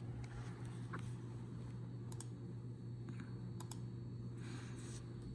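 A few faint sharp button clicks, a close pair about two-thirds of the way in, over a steady low electrical hum.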